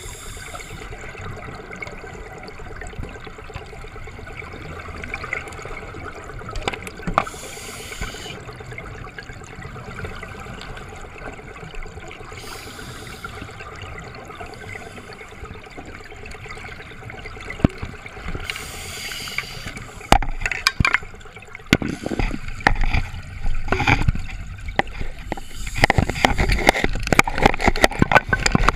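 Underwater scuba breathing through an open-circuit regulator: four breaths, each a short hiss about every five to six seconds, over a steady underwater hum. About two-thirds of the way through, a louder, busier run of knocks, clatter and bubbling sets in.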